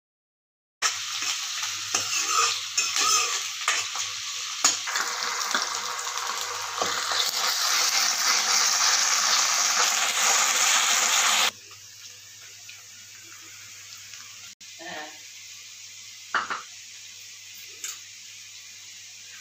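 Chopped onions and ginger-garlic sizzling in hot oil in a kadai, stirred with a steel ladle that scrapes and clacks against the pan. The sizzle starts about a second in, then drops abruptly to a much quieter level about eleven seconds in, leaving a few single ladle knocks.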